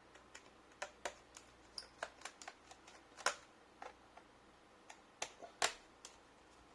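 Irregular small clicks and taps of hands and tools working on an HP G62 laptop's casing during disassembly, with two sharper knocks about three and five and a half seconds in.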